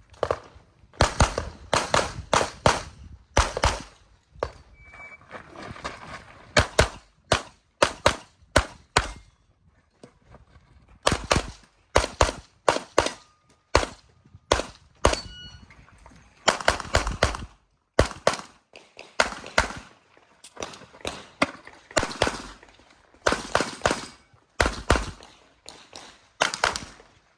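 Pistol shots fired in quick pairs and short rapid strings, with pauses of a second or two between strings.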